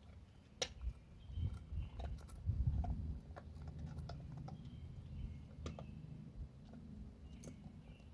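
Hound dogs making irregular clicking, smacking mouth sounds with a low rumble beneath.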